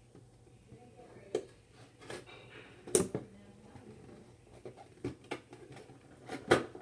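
Scattered clicks, taps and crinkles of an action figure's packaging being worked open by hand, with the sharpest click about three seconds in.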